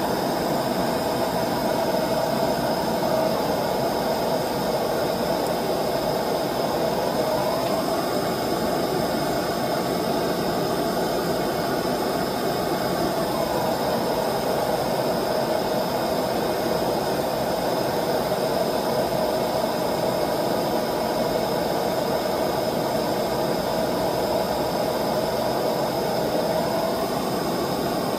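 Gas burner of a small steel melting furnace running at full flame, a steady rushing noise without a break, while it heats gold for melting.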